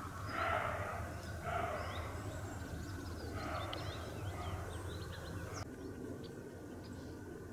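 Roe deer barking: three barks, the first two about a second apart and the third about two seconds later.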